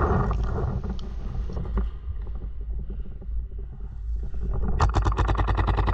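Wind rumbling on the microphone. Near the end comes a rapid string of paintball marker shots, about ten a second.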